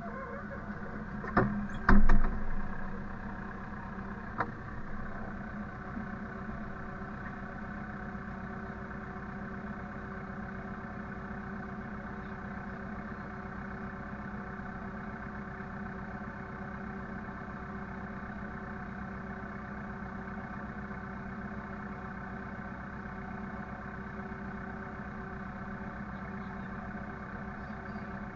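An engine running steadily at a constant speed, with two loud knocks about one and a half and two seconds in and a faint click a little later.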